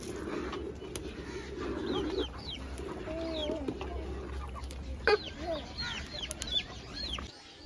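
Chickens clucking, with many short, high, falling chirps throughout. There is a sharp knock right at the start and another, the loudest sound, about five seconds in.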